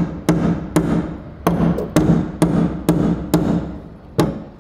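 Hammer striking a spot-weld removal chisel driven under the spot welds of a steel car sill panel: about two sharp, ringing blows a second, with a short pause near the end.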